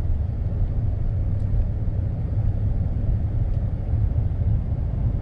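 Steady low road rumble heard inside a moving car's cabin: engine and tyre noise while driving.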